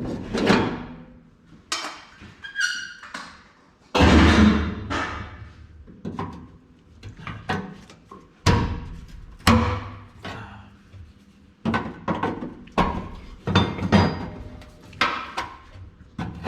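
Irregular metal knocks and clanks from steel parts being handled and struck during roll cage work on a truck body, about twenty in all. Some ring briefly, and the loudest bang comes about four seconds in.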